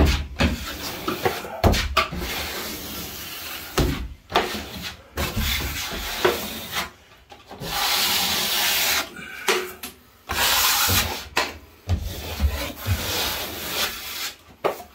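Steel taping knife scraping plaster compound across a drywall ceiling joint, bedding in FibaFuse tape: a series of long scraping strokes with short pauses between them.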